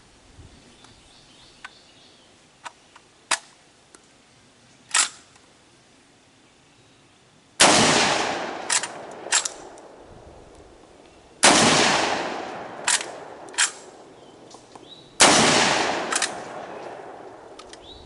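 Century Arms PW87 lever-action 12-gauge shotgun firing three shots of #8 birdshot about four seconds apart, each with a long echoing tail. After each shot come two short metallic clacks as the lever is worked to cycle the next shell.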